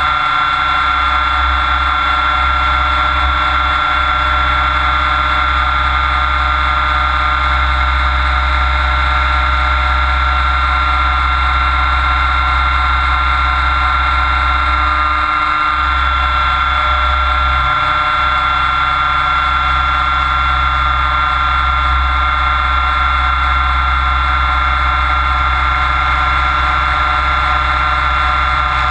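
Mikado Logo 600SX electric RC helicopter in flight, heard from a camera bolted to its frame. The motor and gears give a steady whine at an even pitch, with the rotor's whir beneath it.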